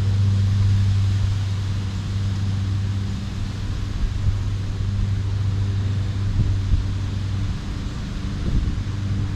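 Small gasoline engine running steadily with an even hum, weakening briefly near the end; most likely the push mower cutting the yard nearby.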